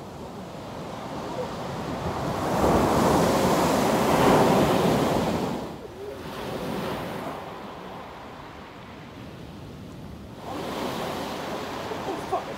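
Sea waves breaking and washing up a beach: one wave swells and breaks loudly from about two seconds in and fades by six seconds, and another washes in near the end.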